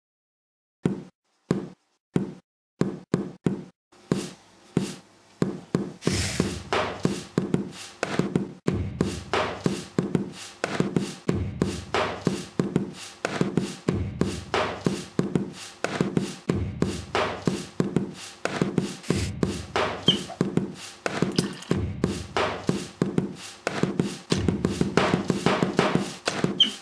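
Plastic spray bottles knocked down on a kitchen countertop, cut together into a beat. It starts as single knocks about a second apart, and from about six seconds in builds into a quick, steady rhythm of knocks and taps with a low bass under it.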